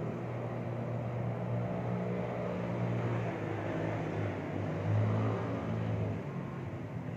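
A motor engine running with a low, steady hum whose pitch shifts slightly, briefly swelling about five seconds in.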